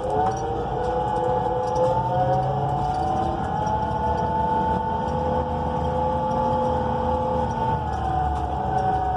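Cabin sound of a moving 2014 NABI 42 BRT transit bus: a steady drivetrain whine over engine and road rumble. The whine's pitch rises slowly and then drops back near the end.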